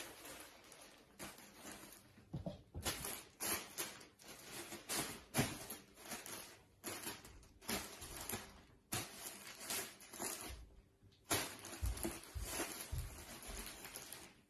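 Thin plastic shopping bag rustling and crinkling in irregular bursts as two cats paw at it and push their heads inside.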